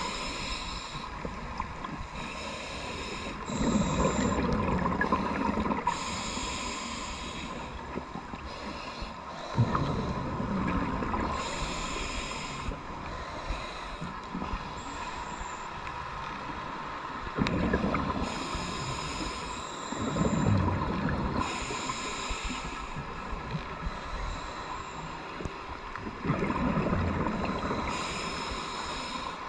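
Scuba diver breathing through a regulator underwater: a short hiss on each inhale, then a longer rumble of exhaled bubbles, about four breaths, one every eight seconds or so.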